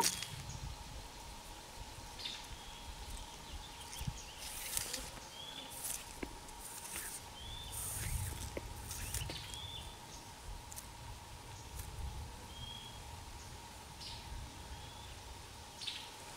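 A bird gives a short chirp every two to three seconds, about six times, over faint intermittent rustling of nylon cord and dry leaf litter as hands tie a knot at a tent stake.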